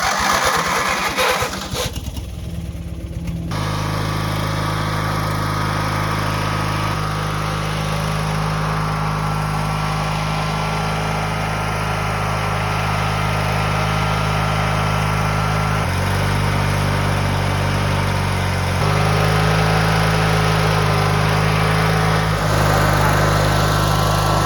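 Riding lawn mower's small engine running. It is uneven for the first few seconds, then settles into a steady drone whose pitch shifts a few times.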